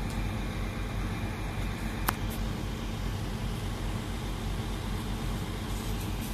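Heavy diesel machinery engines running steadily, with one sharp metallic click about two seconds in.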